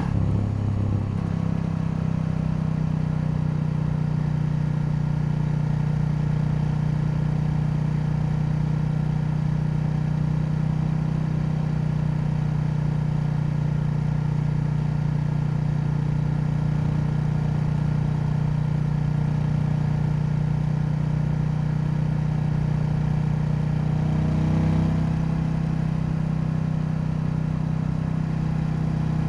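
KTM 890 Duke's 889 cc parallel-twin engine running at a steady engine speed, holding one even note. About 25 seconds in, the note rises briefly.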